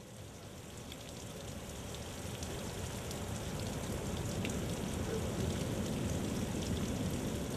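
Steady rain falling, with water dripping off the edge of a thatched roof in scattered small ticks; the sound fades in over the first few seconds.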